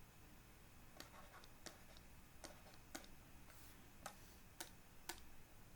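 Faint, sharp clicks at uneven spacing, about two a second, over near-silent room tone.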